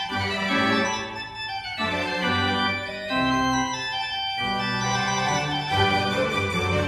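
Organ music playing held chords that change about every second or so.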